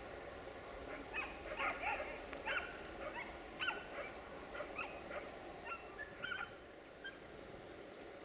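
A dog barking and yelping in short, irregular calls, about ten of them, over the low, steady running of an approaching Siemens Desiro VT642 diesel railcar.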